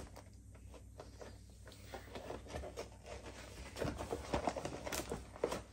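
A cardboard gift box being opened by hand: scattered taps, scrapes and rustles as the flaps are worked loose, busier in the second half, with one sharp click near the end.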